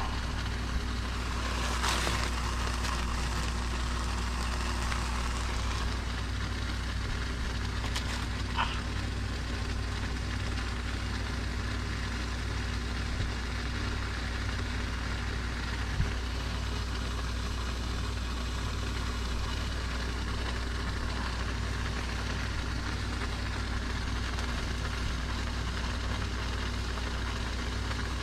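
A machine running with a steady low hum, with a few brief knocks and a short hiss about two seconds in.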